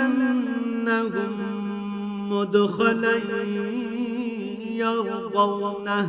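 A man chanting Qur'anic recitation in Arabic in the melodic tajwid style, holding long drawn-out notes with ornamented turns in pitch.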